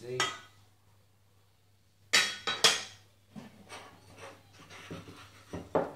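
Lengths of aluminium extrusion clanking against each other as they are handled and set down on a stack: a knock at the start, two loud sharp metallic clanks a little after two seconds in, then lighter knocks and one more sharp clank near the end.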